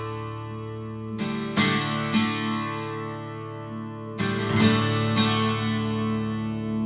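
Background music: acoustic guitar strumming chords and letting them ring, with a fresh strum about a second in and again around four seconds in.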